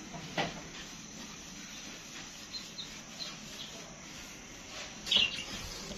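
A hand squeezing and mixing a wet flour-and-yeast batter in a terracotta clay bowl, with birds chirping faintly and a louder short sound about five seconds in.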